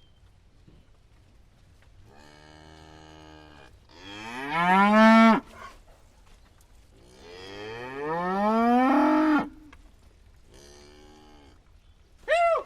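Cattle mooing: a fainter call about two seconds in, then two loud, long moos that rise in pitch, around four and seven seconds in. A softer call follows near the end, and then a short sharp call right at the end.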